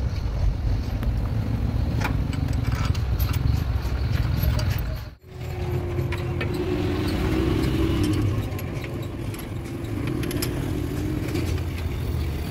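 An engine running steadily at a low, even pitch, with light metallic clinks of tools. The sound breaks off for a moment about five seconds in, and after that a steady higher-pitched hum runs alongside the engine for several seconds.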